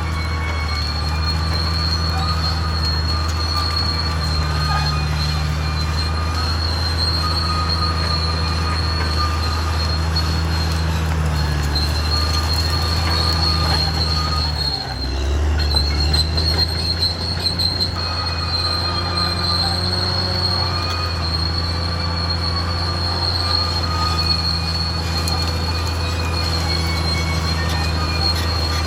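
Caterpillar D6R XL bulldozer working: its diesel engine drones steadily under a constant high-pitched squeal from the steel tracks. About halfway through the sound dips briefly, then the engine surges louder and rougher for a couple of seconds.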